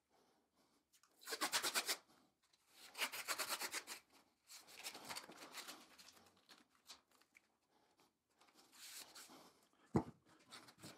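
Green painter's tape pulled off the roll in several short ripping pulls. A single sharp tap comes near the end.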